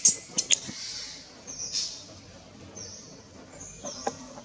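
Infant long-tailed macaque crying with high-pitched squeals: several short sharp squeals in the first second, then thinner drawn-out squeaks.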